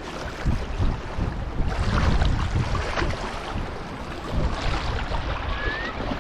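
Strong gusty wind buffeting the microphone, over waves lapping on a river bank.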